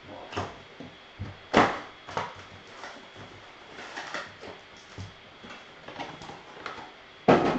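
Foil-wrapped trading-card packs and their cardboard box being handled and set down on a tabletop: a string of light taps and crinkles, with a louder knock about a second and a half in and another near the end.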